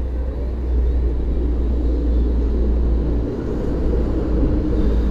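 Steady low rumble, easing slightly about three seconds in.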